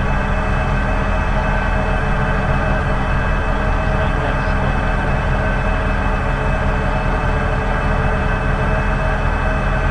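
Engine and hydraulics of a well pump-pulling rig running in a steady drone with fixed humming tones while the rig lifts drop pipe out of the well.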